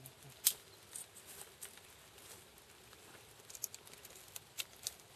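Scattered cracks and scrapes of a stick being pushed and levered inside a hollow tree trunk to break into a bees' nest for honey. The sharpest crack comes about half a second in, and a cluster of quicker ticks follows near the end.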